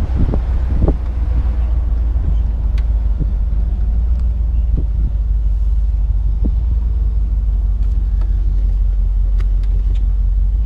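1975 Buick LeSabre convertible driving along, its 350 V8 running through the added dual exhaust as a steady low rumble, mixed with road noise and wind buffeting in the open car.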